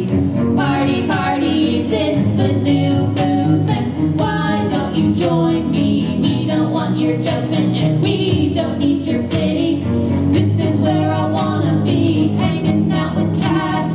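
Live song: a woman singing lead into a microphone over a bowed cello line, with a steady beat throughout.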